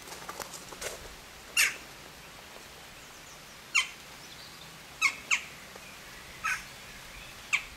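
Crow-family birds giving short, sharp calls, about six at irregular intervals, two of them in quick succession.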